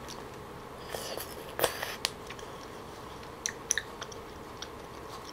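Close-miked chewing of a bite of raw fish dipped in raw egg yolk: soft wet mouth sounds and scattered small clicks and smacks, strongest about a second and a half in.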